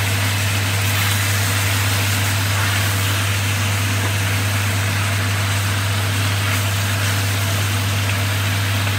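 Kitchen appliance at the stove, most likely the range hood fan, running with a steady low hum and an even hiss over it.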